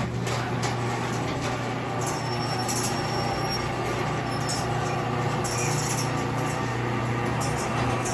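Chamberlain HD400DM garage door opener running as it moves a Clopay sectional door: a steady motor hum with intermittent rattling from the moving door.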